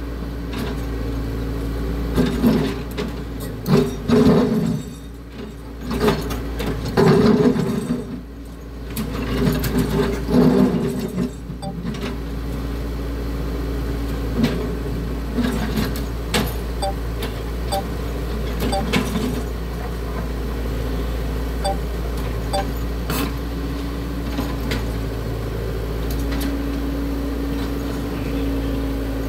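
Caterpillar excavator's diesel engine running steadily. It surges louder several times in the first twelve seconds as it works, with scattered knocks and clanks throughout.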